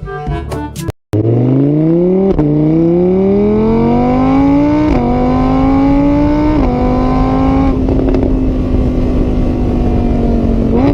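A car engine accelerating hard, its pitch climbing and then dropping back at each of three gear changes before holding a steady note. A second of music comes first, cut off by a brief silence.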